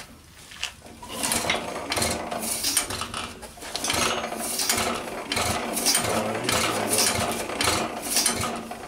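1913 Stickney 1 3/4 HP hit-and-miss engine being rolled over by its flywheels, its valve gear and timing gears clicking and clattering about two to three times a second, starting about a second in. The engine is thought to be flooded.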